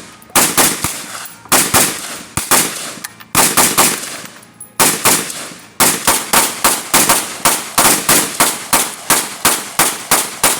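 A short-barrelled semi-automatic AR-15 in .223 firing a long string of shots. The first half has shots in small groups with short pauses; from about halfway the shots come steadily at two to three a second.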